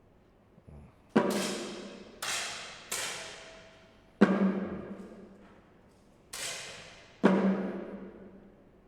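A cheering drum being struck, six single booming beats at irregular intervals. Each ring dies away over about a second.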